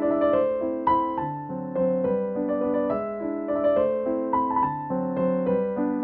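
Background solo piano music playing a waltz, a melody over a steady accompaniment.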